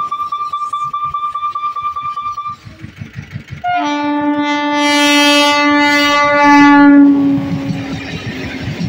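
A steady high tone for the first two and a half seconds, then a pause with faint wheel clatter. An Eastern Railway EMU local train's horn then sounds loudly for about four seconds as it approaches, and its wheels clatter past over the rail joints.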